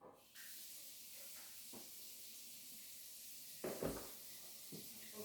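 Steady faint hiss with a few light clicks and one louder knock about four seconds in: small plastic toy gears and parts being handled and fitted.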